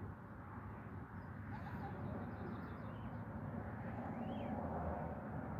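Outdoor ambience of a steady low background rumble with faint bird chirps, a quick run of short notes in the first half and a single call near the end.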